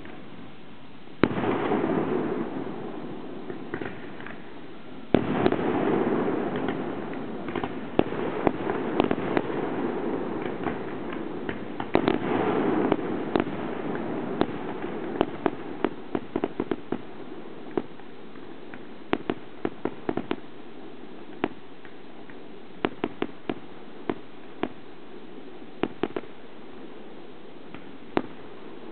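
Aerial fireworks shells bursting: a sharp bang about a second in and another about five seconds in, each followed by a long rumbling crackle. From about fifteen seconds on comes a run of separate sharp cracks and pops.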